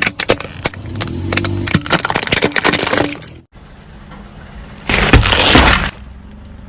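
Soda bottles crushed under a car's tyre: a dense run of cracking and breaking for about three seconds, then, after a short lull, a second loud crunching burst lasting about a second.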